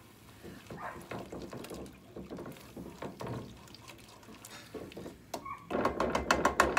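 Whisk stirring milk into a thick butter-and-flour roux in a pan, clicking and scraping against the pan with a wet sloshing. Near the end there is a short stretch of faster, louder whisking.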